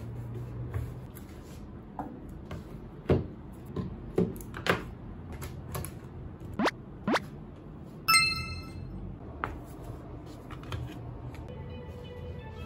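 Knocks and clicks of things being handled on a desk as a plug is pushed into a power strip, broken by several quick rising swoops. A short, bright chime sounds about eight seconds in, and music starts faintly near the end.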